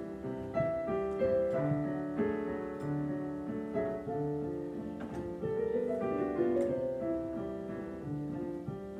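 Digital piano being played: a continuous stream of notes, several sounding together at a time.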